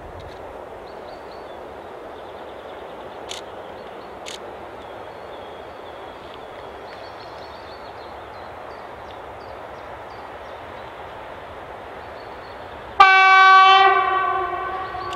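Horn of an ST43 diesel locomotive: one long single-pitched blast that starts suddenly about thirteen seconds in and trails off over about two seconds. Before it there is only a faint steady background noise.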